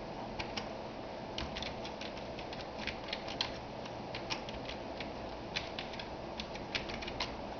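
Computer keyboard keys clicking in irregular runs of typing, over a steady low hum.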